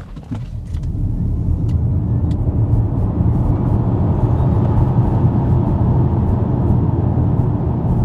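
Cabin noise of a Zeekr 7X Performance electric SUV during a full launch from standstill to about 100 km/h. Tyre and road rumble with wind noise builds quickly over the first second, then holds at a steady loud level as the car reaches speed and begins to slow.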